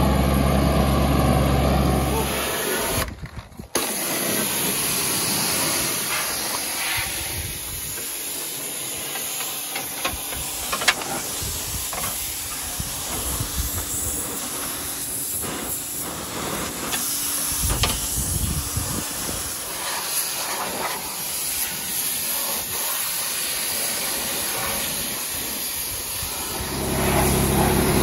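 The John Deere F935's three-cylinder Yanmar diesel engine runs steadily for the first couple of seconds. Then a pressure washer jet hisses and spatters against the steel mower deck and grass for most of the clip. A steady machine hum comes back near the end.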